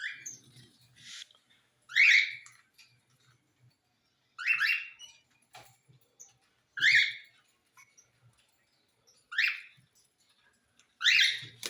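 A parrot calling: short, loud, repeated calls about every two and a half seconds, six in all, with faint low ticks between them.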